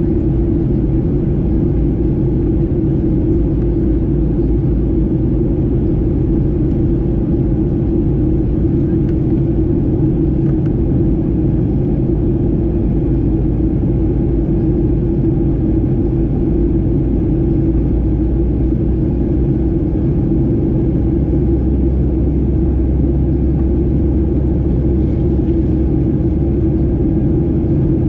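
Steady low rumble inside the cabin of a Boeing 737-800 airliner: engine and airflow noise heard through the fuselage. A deeper hum strengthens about three quarters of the way through.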